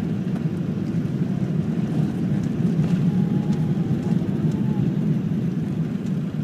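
Cabin noise on the upper deck of an Airbus A380 during its takeoff roll: the steady low rumble of its four Rolls-Royce Trent 900 engines at takeoff power, with a faint thin whine for a couple of seconds in the middle.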